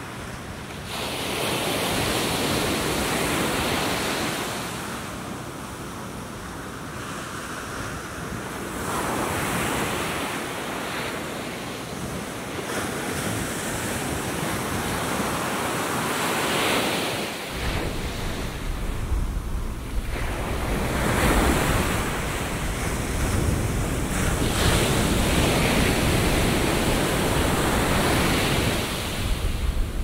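Atlantic surf breaking on a sandy beach, the noise of the waves swelling and fading every few seconds. Wind buffets the microphone, with a stronger low rumble from about halfway.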